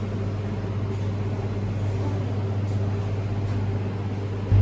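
Steady low electrical hum from the refrigerated milk vending machine, stepping up suddenly louder near the end.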